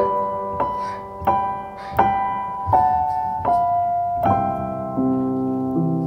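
Background piano music: a slow melody of single struck notes, roughly one every three-quarters of a second, with a held lower chord coming in near the end.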